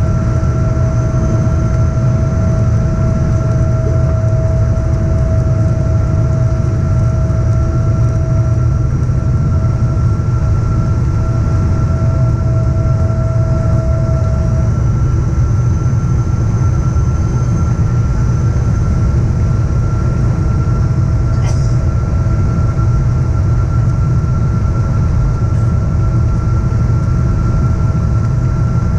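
Steady cabin noise of a Boeing 777-236ER airliner on descent, heard from a window seat over the wing: a deep rumble of engines and airflow with a steady whine on top. A lower tone in the whine drops out about halfway through, and a brief click comes near the end.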